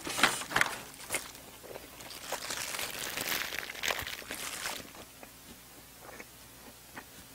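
A few short crisp clicks, then a paper tissue rustling and crinkling for a couple of seconds as it is handled and pressed to the mouth, fading out after about five seconds.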